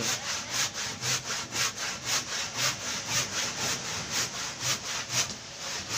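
Hand saw cutting through a wooden plank in steady back-and-forth strokes, about three a second, with a short break near the end.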